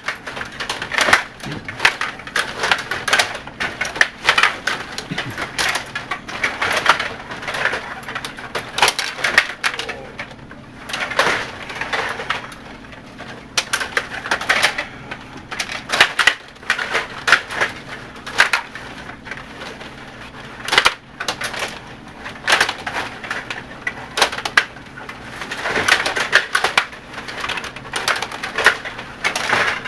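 Stiga rod table hockey game in play: continual rapid clicking and clattering of plastic players, rods and puck, in irregular flurries of knocks.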